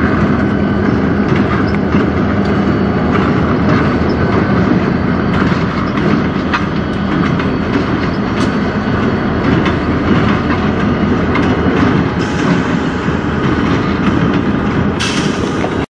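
Freight train passing close by, with CN and BNSF diesel locomotives and tank cars rolling past. A steady low engine hum runs under the rumble of the wheels, with clicks as the wheels cross rail joints. The sound cuts off suddenly at the end.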